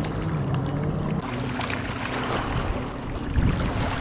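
Motorboat engine droning across the lake, a steady low hum that shifts up in pitch about a second in, with wind on the microphone and water lapping.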